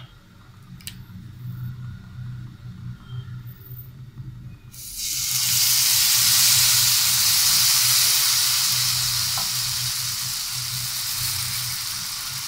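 Beetroot dosa batter hitting a hot nonstick dosa pan and sizzling, starting suddenly about five seconds in and slowly fading: the sign that the pan is well heated. Before that only a faint low hum.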